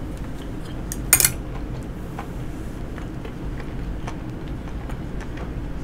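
A person chewing a mouthful of chewy rice cakes, with faint small mouth clicks and one sharp wet smack about a second in, over a steady low hum.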